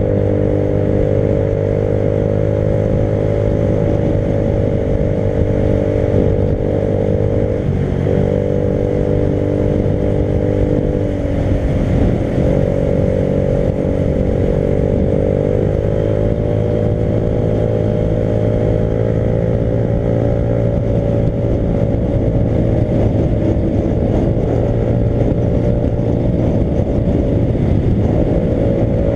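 Motorcycle engine running steadily on the move, its pitch holding level with a few brief dips and shifts from throttle changes.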